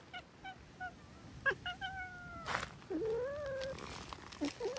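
Cats meowing: a few short chirping meows in the first couple of seconds, then long, drawn-out, wavering yowls from about three seconds in.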